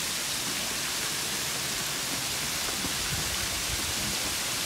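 Waterfall with falling water making a steady, even rush, with some low rumbling in the second half.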